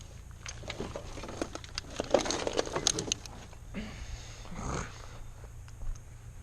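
A run of small clicks and rustling handling noise, busiest about two to three seconds in, with a softer rustle near the end.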